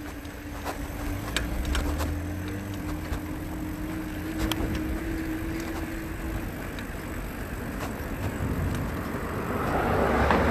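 Wind buffeting the microphone and tyre noise from a bicycle ride on a paved road, with light rattling clicks. A steady whine runs through the first six seconds, and the rush of wind grows louder near the end.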